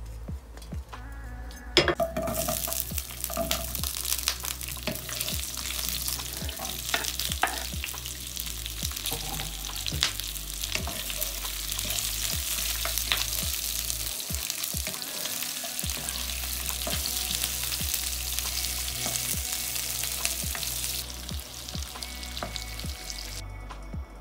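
Onion and bell pepper pieces frying in hot oil in a non-stick wok: a dense sizzle that starts suddenly about two seconds in, with a wooden spoon clicking and scraping against the pan as it stirs. The sizzle stops shortly before the end, while faint background music with a low beat plays underneath.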